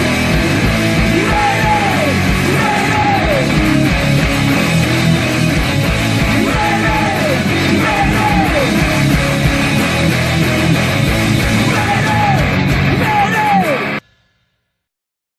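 Electric guitar playing a heavy rock part over a full band track with shouted vocals; the music cuts off abruptly about fourteen seconds in.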